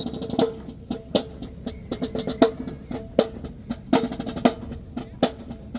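Marching band drumline playing a steady marching beat: sharp snare drum strikes with drum rolls over bass drum hits.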